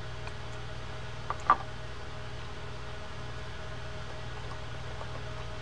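Steady low background hum while a small screwdriver fits the set screw of a saltwater fishing reel's handle. A faint tick, then a sharper metallic click about a second and a half in, from the tool and reel parts being handled.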